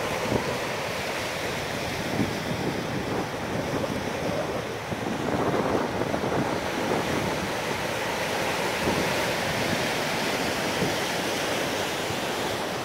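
Ocean surf washing over shoreline rocks, a steady rushing, with wind buffeting the microphone.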